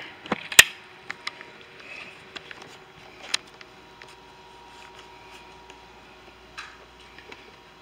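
Sharp clicks and taps from plastic heater-case parts being handled and pried at, the loudest about half a second in and another about three seconds in, over a faint steady hum.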